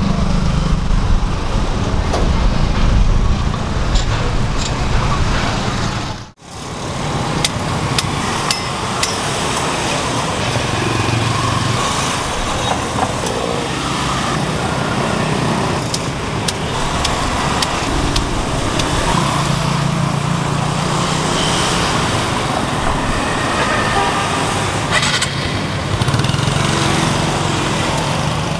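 Street traffic noise: a steady hum of passing vehicles, with scattered light clicks. The sound cuts out briefly about six seconds in.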